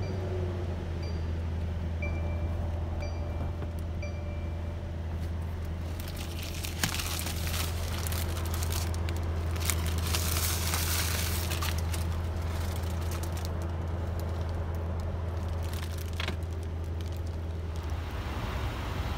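Mercedes-AMG S63's twin-turbo V8 idling with a steady low drone. A dashboard chime sounds about once a second for the first few seconds, and protective plastic wrap crinkles loudly through the middle.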